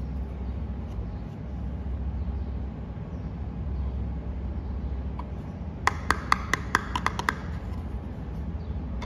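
Hard plastic toy cookie being tapped: a quick run of about nine sharp clicks over a second and a half, about two-thirds of the way in, over a steady low hum.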